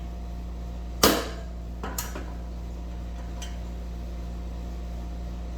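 Hammer striking a socket set against a wheel bearing's outer race, driving the new bearing into the Suzuki DRZ400 front hub: one loud metallic blow with a short ring about a second in, then a light tap about a second later.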